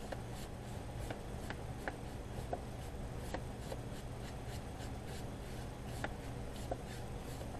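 A watercolor brush working over paper: soft strokes with scattered small ticks and clicks, over a steady low hum.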